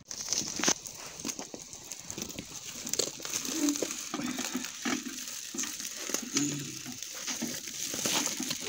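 A woven plastic sack of freshly caught fish being handled on a dial scale. The sack rustles and crinkles, with many irregular light clicks and knocks.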